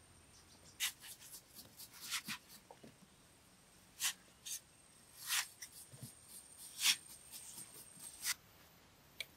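Small metal trowel scraping and chipping into a dried mud block as a hole is carved out of its side: a run of short, irregular scrapes with a few sharper ones.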